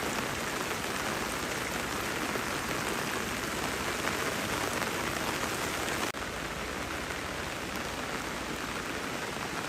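Steady rain falling, a dense even patter, with a brief break about six seconds in.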